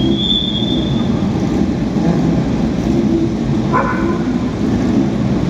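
Historic racing car engines running at a circuit, a loud, steady low rumble. A short high-pitched tone sounds at the start, and a brief higher sound about four seconds in.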